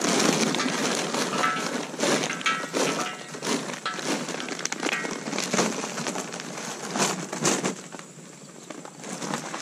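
Hickory charcoal briquettes poured from a paper bag, clattering and rattling onto burning wood in a steel fire pit. The clatter eases off about eight seconds in.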